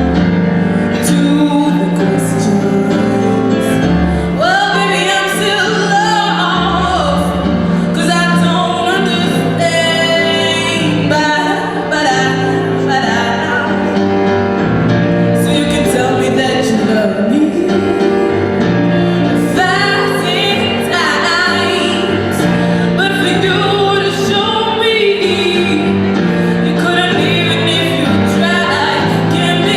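A woman singing a song with instrumental accompaniment, with steady low notes under the voice and regular percussive strikes.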